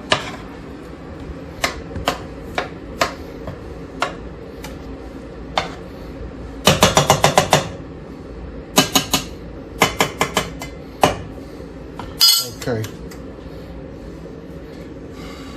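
A spoon clinking and knocking against a large cooking pot while a bolognaise sauce is stirred: scattered single clinks, a quick run of about eight taps near the middle, more clusters of clinks after it, and a short scrape near the end.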